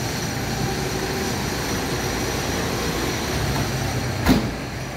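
Steady rumble of passing street traffic, with one short sharp knock about four seconds in.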